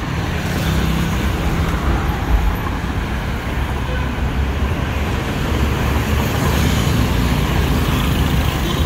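Steady road traffic on a busy city avenue: a continuous low rumble of passing vehicles.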